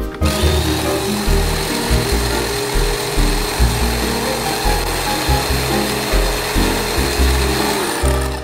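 Small electric mini food chopper running, its blades chopping pandan leaves: a steady motor whine with grinding, starting just after the start and cutting off near the end. Background music plays underneath.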